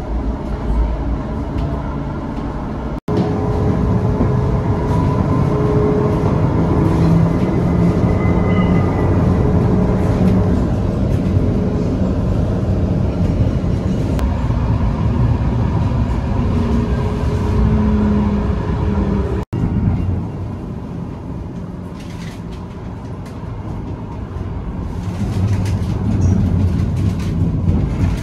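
Running noise inside a moving tram: a steady rumble of the wheels on the rails with a whine from the drive, rising in pitch for a few seconds early on. The sound breaks off sharply twice and comes back straight away.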